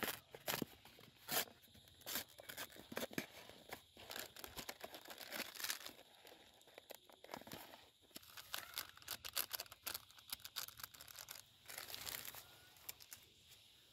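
Plastic shrink-wrap being torn and crinkled off an instant ramen cup, then the cup's foil lid peeled back, in irregular crackling and tearing noises.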